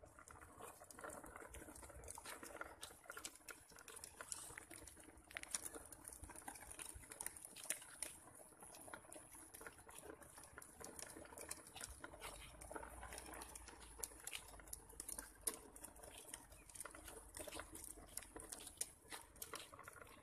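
Quiet outdoor ambience: a faint steady high-pitched hiss with many scattered light clicks and taps, and a faint low rumble from about the middle on.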